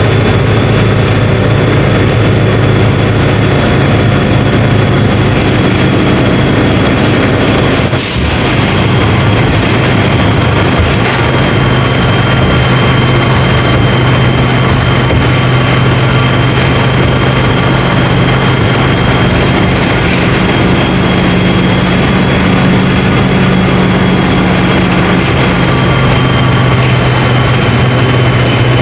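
Mercedes-Benz OF 1721 BlueTec 5 bus's four-cylinder diesel engine running steadily with a deep hum and a faint high whine. It drops briefly about eight seconds in, and its pitch shifts slightly later on.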